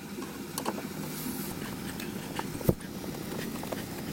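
Scattered light clicks and taps of a Phillips screwdriver and trim screws being worked into a Jeep Cherokee XJ's plastic body trim, with one sharper knock about two and a half seconds in, over a steady background hiss.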